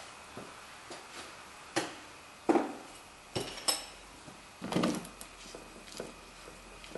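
Hand tools and loose steel suspension hardware clanking as they are handled at the upper control arm: a handful of separate metal knocks and clinks, the loudest about two and a half seconds in.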